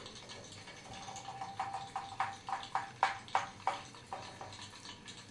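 Tin pop-pop toy steam boat running on bathtub water, its engine putt-putting: a steady hum with a rapid series of sharp pops, about three a second, loudest in the middle and fading near the end.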